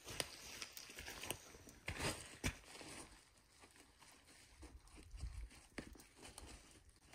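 Dry grass and twig kindling of a freshly lit campfire crackling faintly with scattered snaps as it catches. Crunching of footsteps on dry grass is heard in the first few seconds, with the sharpest snaps about two seconds in.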